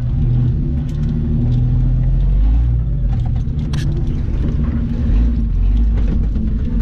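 Jeep Cherokee XJ engine running steadily at low revs, heard from inside the cab as it creeps over rough dirt, with a few sharp clicks and rattles from the vehicle.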